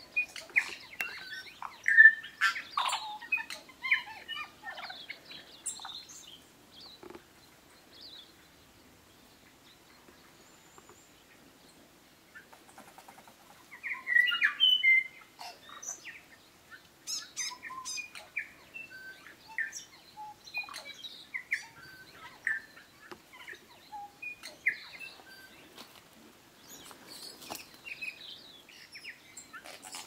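New Zealand bellbird (korimako) singing in short phrases of separate notes and chirps. The song goes quiet for several seconds about a third of the way through, and the loudest phrase comes about halfway.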